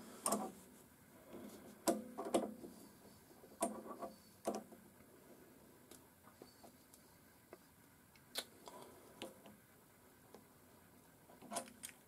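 Scattered small metallic clicks and taps as pliers grip and turn a steel nut on the lathe's threaded tool-post stud, with quiet gaps between. The nut is being forced onto the stud until it jams.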